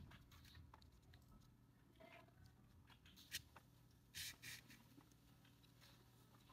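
Faint handling sounds of a sewing needle and yarn being drawn through a crocheted piece: soft rustling and small ticks, with a sharper tick a little past three seconds and a brief scratchy rustle about four seconds in.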